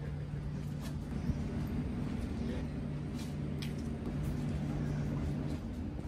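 Steady low engine-like drone from distant machinery or traffic, humming on a constant pitch, with a few faint short ticks on top.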